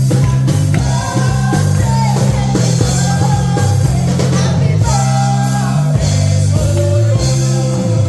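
Rock music with a sung vocal over a steady bass and drums.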